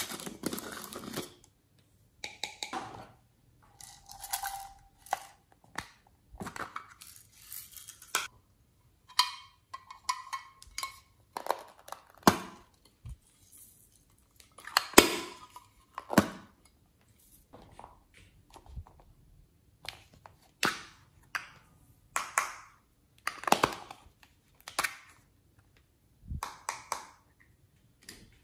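Soft plastic clay piping bottles squeezed and handled by hand: irregular short squishes and crackles, a few with a brief squeak.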